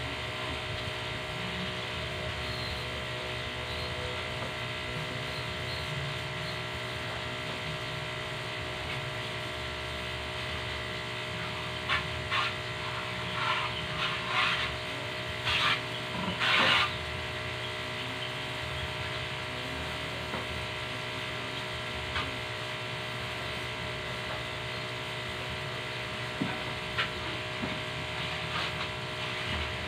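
Steady, even hum of an electric high-pressure washer's motor, with a cluster of short hissing bursts about halfway through and a few fainter ones near the end.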